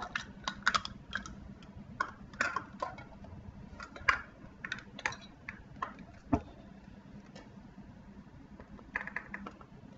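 Measuring scoop dipping into a jar of granulated sugar and being levelled: irregular light clicks and scrapes of the scoop against the jar, with one louder knock a little past the middle.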